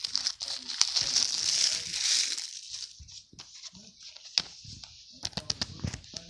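Plastic packaging wrap crinkling and tearing as it is pulled off a DVD set. It is followed by a few sharp clicks and taps of the package being handled.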